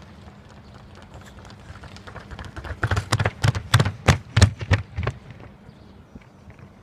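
Footfalls of athletes sprinting in running shoes on a wooden track floor. About three quick strikes a second, growing louder to a peak about four seconds in as the runners pass close, then fading.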